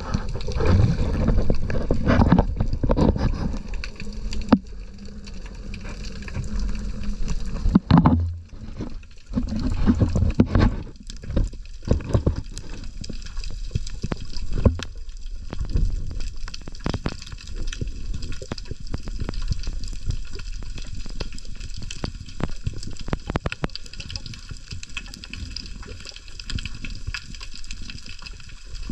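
Sea water sloshing and gurgling around the camera during a shallow-water spearfishing dive, with many scattered clicks and knocks, busiest in the first half.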